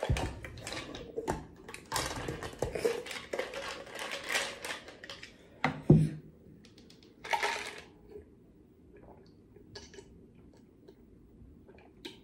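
A plastic tumbler's lid being twisted and pulled off, with plastic and ice rattling and clattering for the first few seconds and a sharp knock just before six seconds in. A short rattle follows, then only faint light clicks as the open cup is tipped up.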